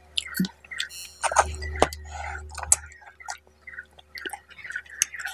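Close-miked eating of fish head curry and rice by hand: wet chewing with many sharp mouth clicks and smacks, and the squish of the soft fish head being pulled apart.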